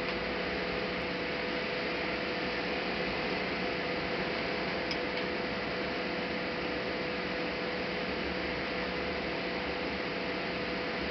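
Steady background hiss with a constant hum tone, and a couple of faint ticks about one and five seconds in.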